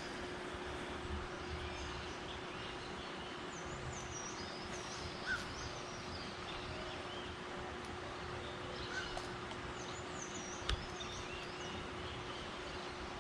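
Outdoor background with birds chirping in short high phrases, twice, over a steady low hum. A single sharp click sounds near the end.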